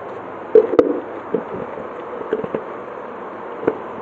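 Round plastic snack containers being handled, with knocks and clicks of plastic lids and tubs. A cluster of knocks comes about half a second in, including one sharp click, followed by a few lighter taps.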